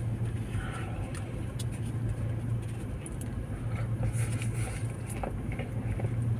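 Someone chewing a crispy chicken wrap, faint short crunches over a steady low hum.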